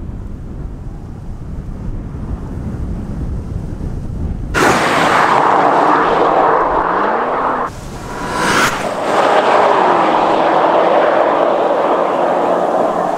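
Low rumble, then the BMW M5's twin-turbo V8 comes in suddenly and loud under hard acceleration, its pitch rising briefly. It drops out for a moment, then runs on with the pitch falling and settling.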